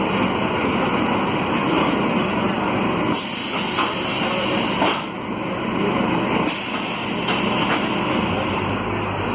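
Cabin noise of a Volvo B9SALF low-floor city bus on the move: its Volvo D9A diesel running under a steady blend of road noise and body rattle. A few sharp knocks come through about three to five seconds in.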